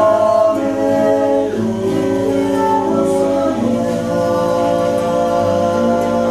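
Live singing: a man's and a woman's voices together in harmony, holding long notes that change pitch every second or two.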